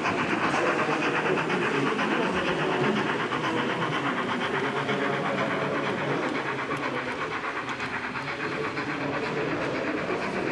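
H0-scale model steam locomotive of DRG class 57 running with its train, its sound decoder playing steady, fast steam chuffing with hiss, over the running noise of the wheels on the track.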